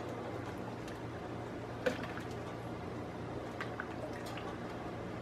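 Wooden spoon stirring a thick coconut-and-milk mixture in an enamel pot, with wet sloshing and a sharp knock of the spoon about two seconds in. A steady low hum runs underneath.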